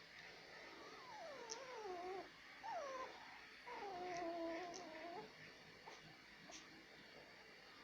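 A puppy whining in three falling cries, the last one the longest.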